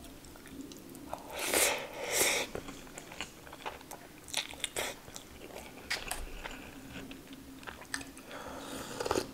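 Close-miked mouth sounds of a person eating rice and curry by hand: biting and chewing with wet smacking clicks, loudest in two bursts a second and a half to two and a half seconds in, then a sip from a cup near the end.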